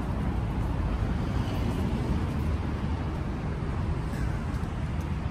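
City street ambience: a steady low rumble of traffic and outdoor noise.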